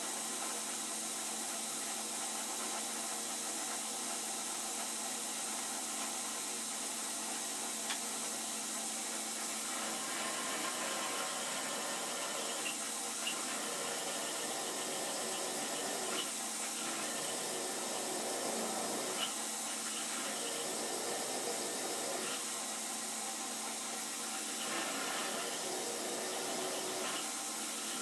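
Milling machine drilling a clearance hole in cold-rolled steel flat stock, heard as a steady hiss with a few faint ticks.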